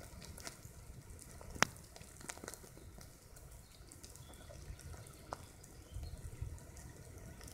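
A swarm of wood ants moving over the dry conifer-needle thatch of their mound: a faint, continuous sizzle with scattered small ticks and crackles, the sharpest about a second and a half in.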